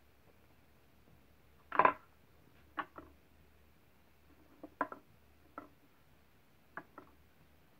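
Kitten pawing at a wooden cat activity box, making a scatter of light knocks and taps, about nine in all; the loudest and longest comes near two seconds in, the rest in small pairs and clusters after it.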